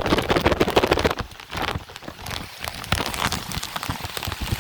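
Rain falling, with many drops striking close to the microphone in a dense crackle; it thins out about a second in and thickens again past the middle.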